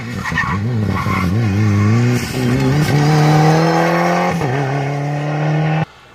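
Ford Fiesta rally car's engine under hard throttle as it passes, the pitch wavering at first, then rising steadily through a gear, with a gear change about four seconds in and a steady pitch after it. The sound cuts off suddenly near the end.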